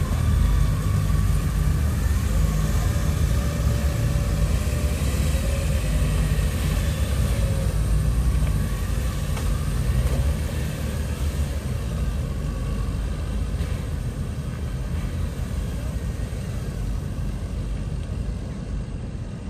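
Several Yamaha FJR1300P police motorcycles, each with an inline-four engine, running as they pull away one after another in a column. The engine rumble slowly fades over the second half as they ride off.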